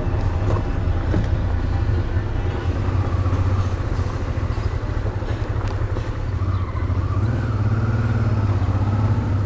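Honda Transalp 650's V-twin engine running steadily while riding at road speed, a constant low drone under a haze of wind and road noise.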